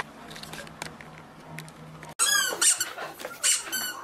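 Quick runs of loud, high-pitched squeaks begin about halfway through, each squeak a short gliding chirp repeated several times a second, after faint room sound with a few light clicks.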